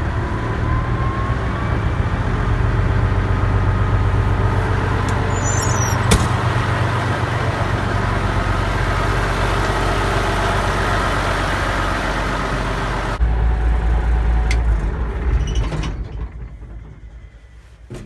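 Peterbilt 359's big-rig diesel engine running just after a cold start, with a steady deep rumble and a faint whine rising over the first couple of seconds. About thirteen seconds in, the sound changes abruptly to a heavier low rumble, and it dies down a few seconds later.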